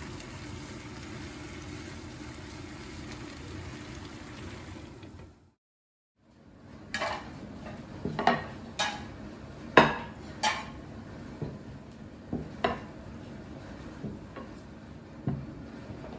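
Green peppers and potato chips frying in pans with a steady sizzle. After a short break, plates are set down on a table one after another: a string of sharp clinks and knocks.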